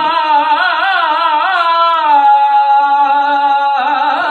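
Unaccompanied voice singing a naat, drawing out long melismatic notes that waver and slide in pitch, with no words. It moves to a new held note near the end.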